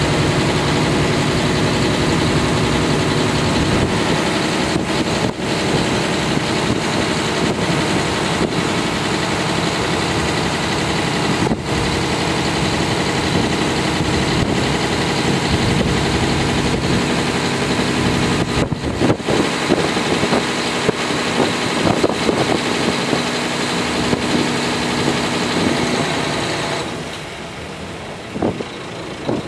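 Kashima Rinkai Railway 6000-series diesel railcar running along the line, heard from inside the passenger cabin: a steady engine drone with wheel and track noise and a few sharp clicks. Near the end the engine sound drops away and the cabin gets quieter.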